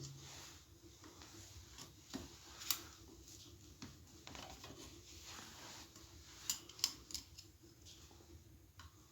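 Faint metallic scraping and clicking of a wire hook, bent from a spoke, prising the springs off a Voskhod-2 motorcycle's clutch basket. There is a sharper click about a third of the way in and two more in quick succession past two-thirds.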